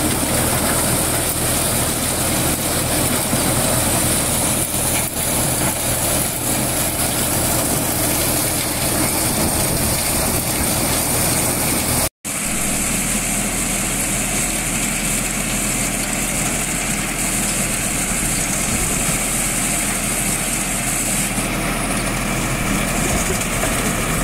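Tractor-driven corn thresher running steadily while ears of corn are fed into its hopper, the tractor engine and the spinning threshing drum making one continuous machine noise. It breaks off for an instant about halfway through, then carries on.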